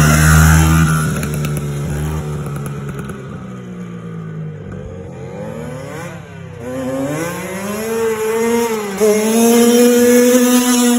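Small kids' dirt bike engine revving loud as it passes close by, then falling in pitch and fading as it rides away. From about six seconds in, an engine comes back up, revving higher and growing louder as a bike rides toward the microphone.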